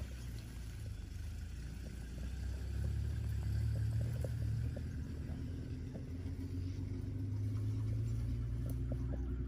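Vehicle engine idling, a steady low rumble that swells twice.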